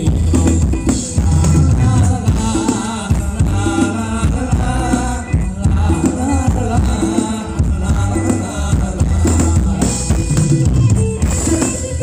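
Live band playing Thai ramwong dance music, loud, with a steady drum-kit beat and a melody over it.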